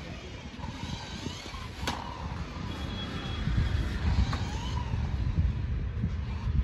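Mini RC toy car driving across a stone floor, its small electric motor whining faintly and wavering in pitch as it speeds up and turns, over a low rumble. A single sharp click comes about two seconds in.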